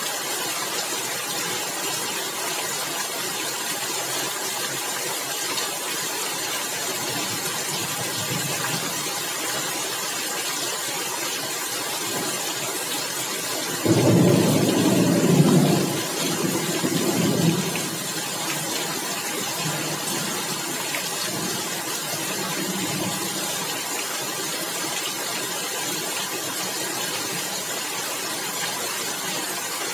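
Heavy rain pouring steadily on roof tiles, an even hiss. About 14 seconds in, a rumble of thunder breaks in suddenly, loudest for about four seconds and then dying away in fainter rolls.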